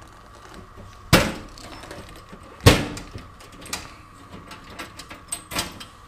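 Handling of a 12 V diesel heater's top cover while it is being taken off: two sharp knocks about a second and a half apart, then a few lighter clicks.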